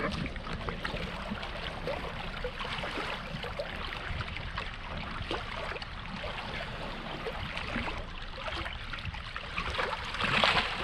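River water lapping and sloshing against shoreline rocks, with small splashes as hands move in the shallow water. A brief louder splash comes near the end.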